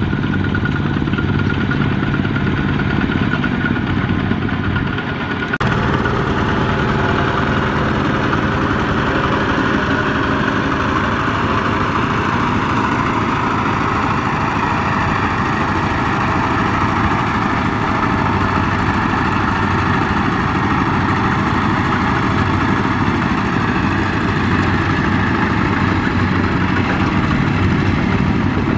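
Single-cylinder diesel engines of two-wheel power tillers running steadily as they pull trailers, with an abrupt change in the engine sound about five and a half seconds in.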